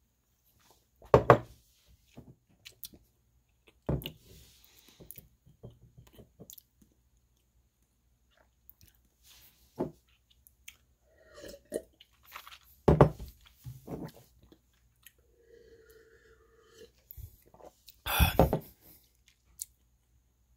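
Glass mason jars knocking and being set down on a countertop, with sips and swallows of juice and water between. The sharpest knocks come about a second in, around two-thirds of the way through, and loudest near the end.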